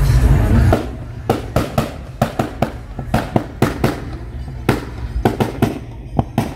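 Car engine, which the speaker calls a V8, revving down in the first second. Its exhaust then pops and bangs on the overrun: irregular sharp cracks, about four a second, over the engine's low rumble.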